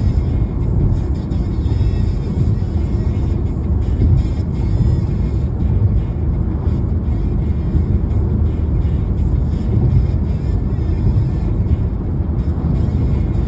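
A car driving along the road, with a steady low rumble of engine and tyre noise.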